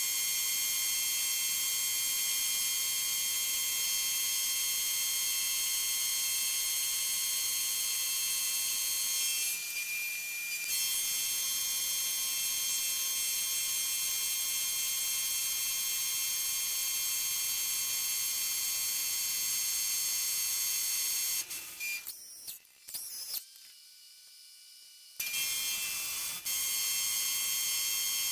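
Mill-drill running an end mill through a 4140 steel bar: a steady high-pitched machine whine. It dips briefly about ten seconds in and stops for a few seconds near the end, then resumes.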